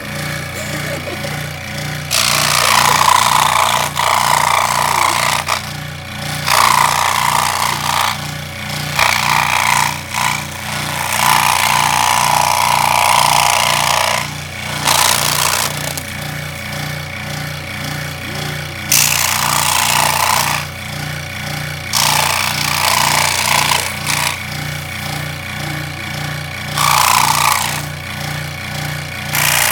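Benchtop scroll saw switched on and running, its reciprocating blade giving a steady pulsing hum. Several stretches of louder cutting noise come and go as the blade cuts through cardboard along a drawn shape.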